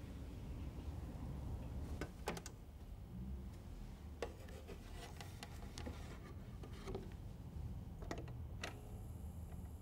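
A vinyl record and turntable being handled: soft clicks and knocks as the record goes onto the platter and the tonearm is moved, over a low steady hum. Near the end the stylus drops with a click and a steady faint hiss of record surface noise begins.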